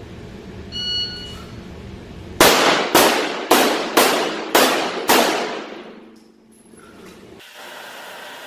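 A short electronic beep about a second in, then six rapid shots from a Glock 34 9mm pistol, about half a second apart, each leaving a ringing echo.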